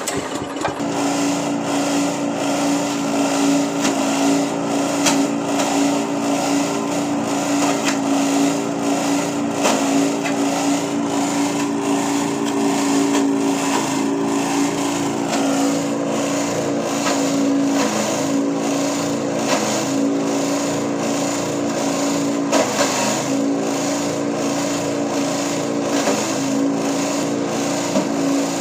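Multifunction grass chopper (forage chopper) running steadily under load while chopping durian skins, with scattered knocks from the pieces hitting the blades.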